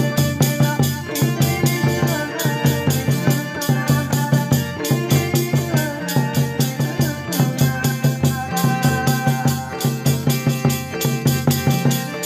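Devotional music: a keyboard with an organ sound played over a steady, quick drum beat, about four beats a second.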